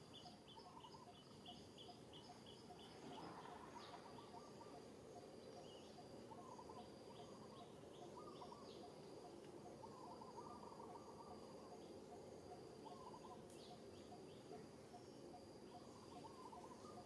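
Faint outdoor background of birds and insects calling: rows of short, high repeated chirps and a thin high tone that comes and goes, with recurring lower trills throughout.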